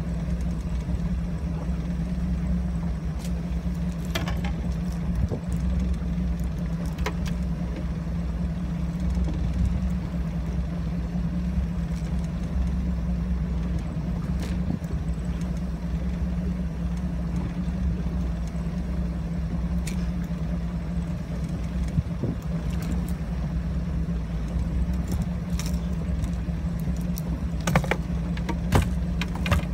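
Boat engine running steadily, a constant low hum, with a few sharp clicks and rattles of fishing tackle being handled, more of them near the end.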